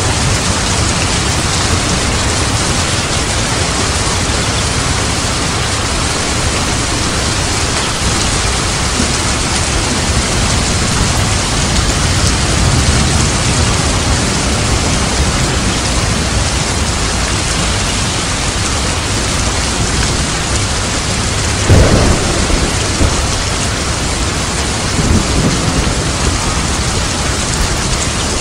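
Heavy rain pouring steadily, a dense even hiss. About two-thirds of the way through comes a short low thud, and another a few seconds later.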